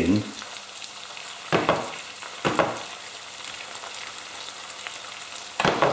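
Chicken slices sizzling in hot oil with onion and garlic in a frying pan: a steady frying hiss. Three brief louder sounds come about a second and a half in, a second later and near the end, as a utensil moves the pieces in the pan.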